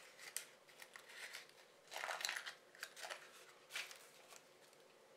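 Soft rustling and crinkling of paper and plastic packaging being handled, in irregular short bursts, loudest about two seconds in.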